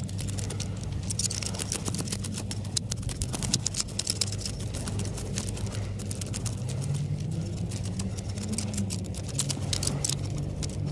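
A knife cutting into a black bream, giving a run of small sharp crunching clicks as the blade works through scales and bone. A steady low hum runs underneath.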